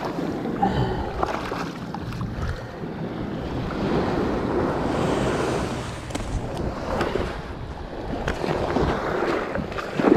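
Surf washing up the sand around the angler's feet, with wind rumbling on the microphone; one wash swells up for a couple of seconds about four seconds in.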